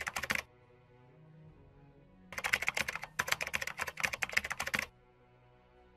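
Rapid keyboard-typing clicks in two runs, a short one at the start and a longer one from about two to five seconds in, as the on-screen text is typed out, over soft background music.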